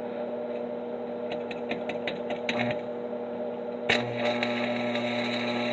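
Stick-welding arc with a 3/32-inch 7018 electrode: a few scattered crackles, then about four seconds in the arc catches and crackles steadily, burning over painted steel and throwing a lot of spatter. A steady electrical hum runs underneath.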